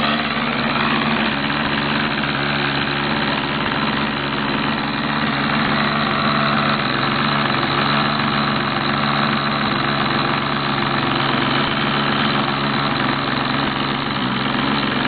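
The .60-size engine of an LT40 Cadet RC trainer airplane idling steadily during a pre-flight radio range check.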